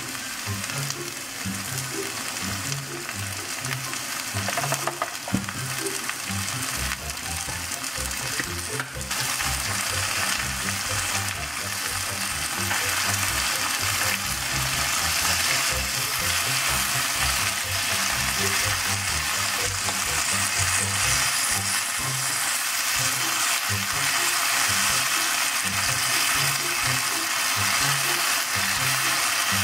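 Kimchi sizzling as it stir-fries in oil in a nonstick wok, stirred through with a wooden spoon. The sizzle grows louder from about ten seconds in.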